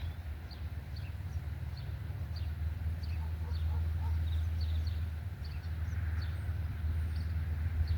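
Small birds chirping over and over, short high chirps that slide downward, over a steady low rumble.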